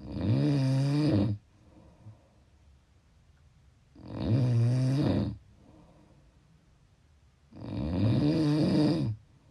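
Snoring: three loud snores, each lasting about a second and a half, coming about every three and a half to four seconds. Each snore has a pitch that rises and then falls, and it is quiet between them.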